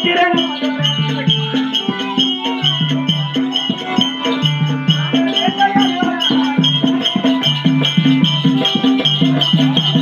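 Live accompaniment for a Tamil village stage drama: a drum and a bright ticking percussion keep a steady beat, about three strokes a second, under a short low melodic phrase that repeats over and over.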